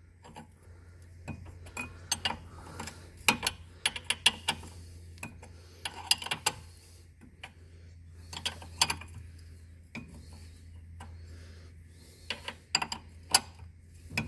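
A 17 mm wrench loosening a tie rod end nut, making short, irregular bursts of sharp metallic clicks as the tool is worked in strokes.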